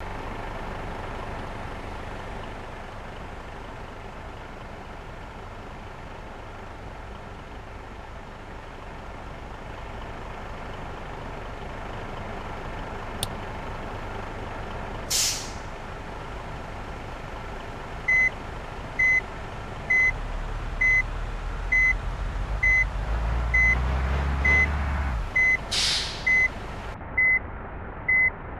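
Large bus with its engine running and a steady hum. There is a short air-brake hiss about halfway through, then a reversing alarm beeps about once a second while the engine rumbles louder, with a second air hiss near the end.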